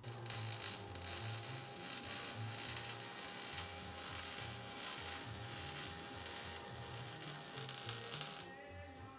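Power tool cutting steel rectangular tubing: a steady high grinding hiss over a motor whine, which stops abruptly near the end.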